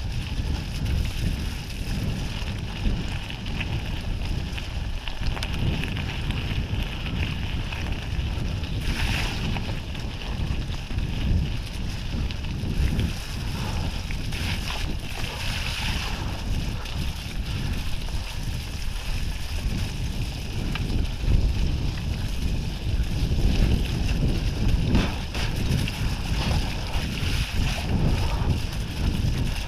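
Wind buffeting the microphone over the uneven rumble and rattle of a mountain bike riding a muddy forest trail.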